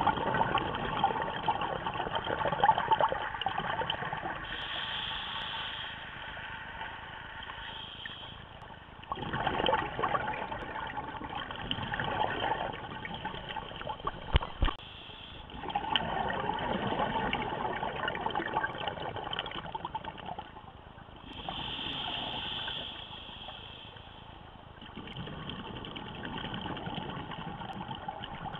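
Scuba regulator breathing heard through the camera housing: bubbling exhalations lasting a few seconds each, alternating with shorter hissing inhalations, about one breath every six to seven seconds. A single sharp click about halfway through.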